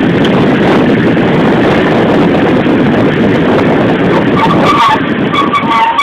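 Loud, steady rushing noise of a moving car in street traffic, with a few short high tones near the end.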